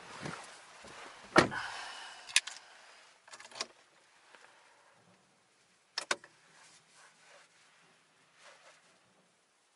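Car door being shut while someone gets into a Volkswagen Golf: a loud thud about a second and a half in, a second knock a second later, then a close pair of sharp clicks about six seconds in.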